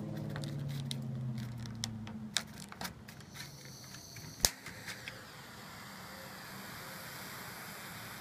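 A vehicle engine hums and fades out over the first two seconds. Then come small handling clicks and one sharp click about four and a half seconds in, as a butane torch lighter's igniter fires. A steady hiss of its gas flame follows.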